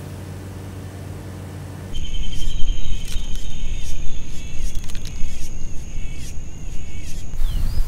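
Steady low hum of an empty office for about two seconds, then an abrupt, louder change to street ambience. The street sound is a steady high insect drone and repeated bird chirps over a low rumble.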